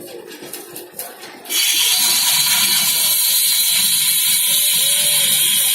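A loud, steady hiss of spraying water starts suddenly about a second and a half in, after a few faint clicks.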